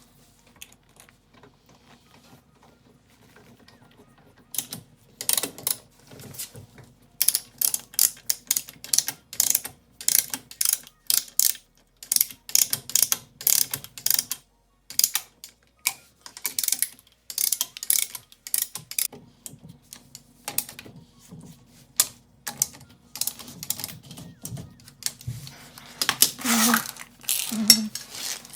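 Ratchet wrench clicking in quick, irregular strokes, as when bolts are run in or out on the suspension or wheel, with a louder clatter near the end.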